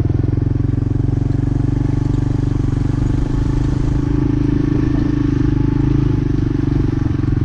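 1986 Honda 4Trax ATV engine running steadily as the four-wheeler is ridden, rising a little in pitch and level in the middle.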